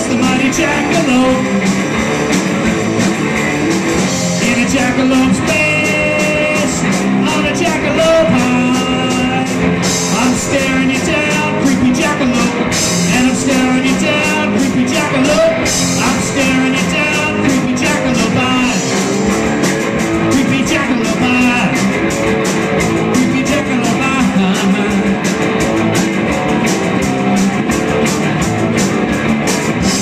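Live rock band playing: electric bass, electric guitar and a drum kit with steady cymbal hits, and a man's voice singing.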